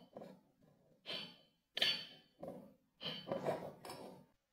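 Kinetic sand in a glass cup being pressed and cut with a plastic spatula: a run of short crunchy, scraping strokes, about one every half second to second, that stop just before the end.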